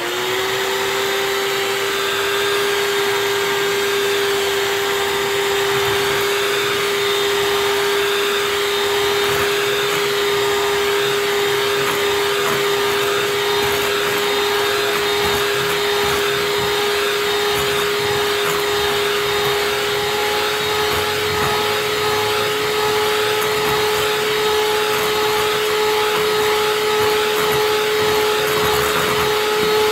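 Electric hand mixer running steadily at one speed, its beaters whipping eggs and sugar in a glass bowl until foamy. A steady motor hum with one strong tone that creeps slightly higher in pitch in the second half.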